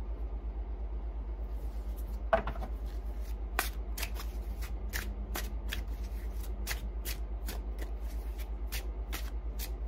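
Tarot deck being shuffled by hand: a sharp clack about two seconds in as the deck is picked up, then a run of quick card snaps, roughly two a second, over a steady low hum.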